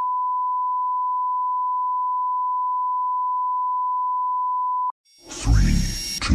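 A steady 1 kHz test tone, a single pure beep held for about five seconds, cuts off abruptly. After a short gap a loud, deep, rumbling intro of music and sound effects starts, with a sharp high sweep about a second later.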